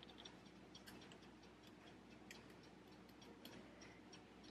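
Near silence: room tone with a few faint, light ticks.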